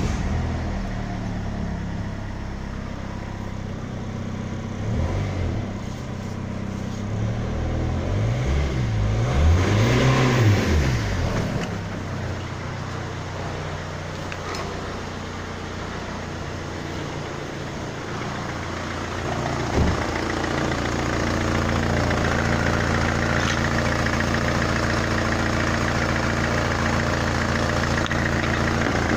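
Renault 1.9 dCi F9Q750 four-cylinder turbodiesel catching just after a start and idling, with a few quick revs between about 5 and 11 seconds in that rise and fall, then settling back to a steady idle. The idle grows louder and closer in the last third, heard from over the open engine bay.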